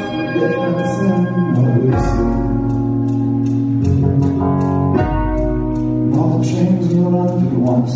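A live band playing through a hall PA: sustained chords on a Nord Stage keyboard over a deep bass line that changes note every couple of seconds, with steady high percussion ticks about twice a second and a male voice singing.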